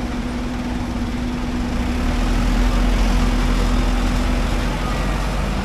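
Steady low hum of an idling engine, with a deeper rumble that grows stronger from about two seconds in.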